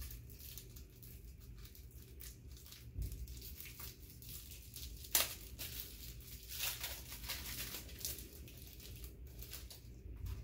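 Small gift wrapping and a little plastic bag crinkling and rustling as they are unwrapped by hand: scattered soft crackles, with one sharper crackle about halfway through.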